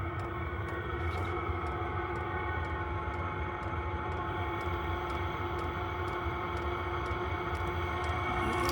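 Vevor diesel air heater running with no exhaust muffler: a steady, unmuffled combustion noise with a low drone and a constant hum, and faint regular ticks about twice a second.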